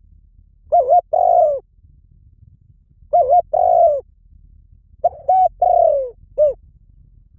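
Spotted dove cooing: three phrases about two seconds apart. Each is two short quick notes followed by a longer note that falls in pitch, and the third phrase ends with an extra short note.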